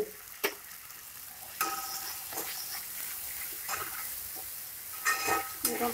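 Spatula scraping and clinking against a steel pan, stirring spices into a tomato masala that sizzles softly in the oil underneath. The strokes come every second or so, with a busier run of scrapes near the end.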